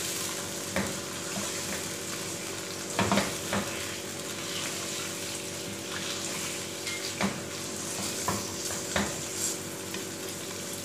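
Chicken pieces and sliced onions sizzling in hot olive oil in a ceramic-coated pan, stirred with a spatula that scrapes and knocks against the pan now and then.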